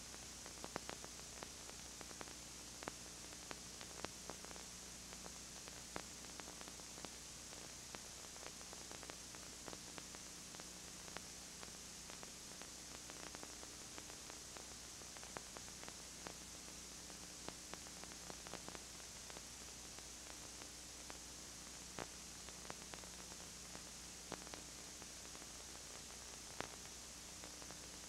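Steady tape hiss with a low electrical hum and scattered faint clicks: the noise floor of a dubbed videotape carrying no recorded sound.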